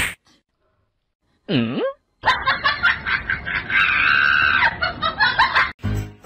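A sharp smack right at the start, then a voice sliding down and back up, followed by about three and a half seconds of people laughing. Music starts just before the end.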